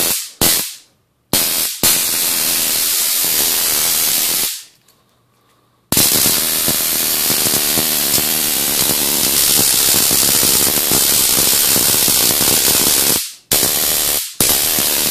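Stun gun built into a homemade sword, arcing at the blade tip: a loud electric crackle that comes in bursts with sudden starts and stops. Two short bursts come first, then one of about three seconds, a long one of about seven seconds, and two short ones near the end.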